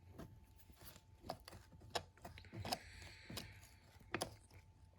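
Faint scattered metal clicks and a brief scrape: a screwdriver being worked into the seam of a transmission cover plate to pry it off the case.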